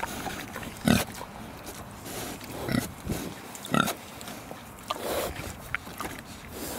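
Pigs eating strawberries at a wire fence, with short grunts and chomping noises every second or so, the loudest about a second in and again near the four-second mark.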